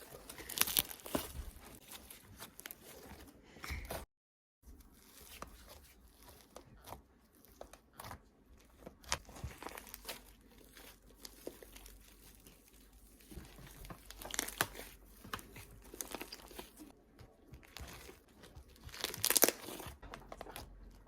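Homemade slime being squished and stretched by hand, giving irregular sticky crackles and pops, loudest about a second in and again near 14 and 19 seconds. The sound drops out briefly about four seconds in.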